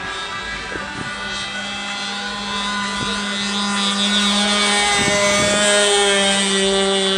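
Radio-controlled model airplane's motor running steadily in flight, a pitched buzz. It grows louder from about four seconds in as the plane passes closer, then eases slightly near the end.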